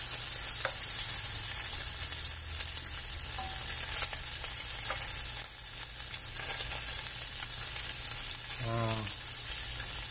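Pork steaks sizzling steadily in a hot frying pan, with a few light clicks as a knife cuts the meat against the pan.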